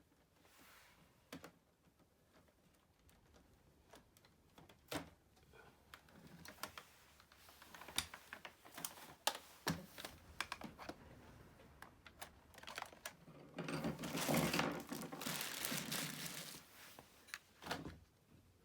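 Plastic parts of a Roomba 780 robot vacuum being handled during disassembly: scattered clicks, taps and light rattles, with a longer stretch of rubbing and scraping a little past halfway through.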